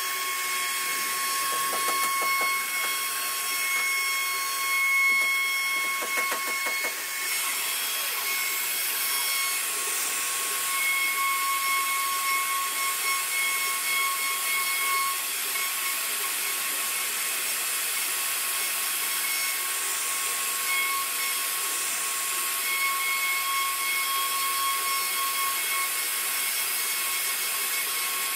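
CNC router spindle whining at a steady high pitch while its cutter carves relief into a wooden panel, with a hiss of cutting throughout. About seven seconds in the hiss turns brighter and stays so.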